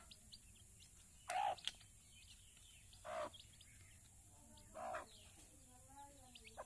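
Chicks peeping in many faint, quick high chirps, with three louder short calls about a second and a half apart.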